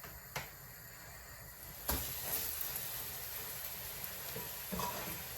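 Cottage cheese cakes frying in hot oil in a pan: a steady hiss of sizzling that starts with a knock about two seconds in.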